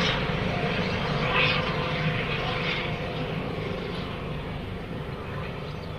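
Helicopter flying overhead and away, its rotor and engine noise fading steadily.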